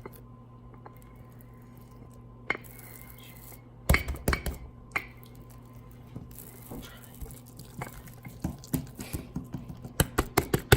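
A wooden rolling pin knocks and clatters against the counter as bread dough is rolled out, in irregular light knocks, with a quick run of them near the end. A steady low hum runs underneath.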